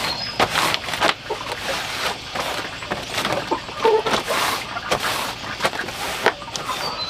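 A cloth wiping large green leaves on a woven bamboo tray: repeated irregular rubbing and rustling strokes of cloth on leaf.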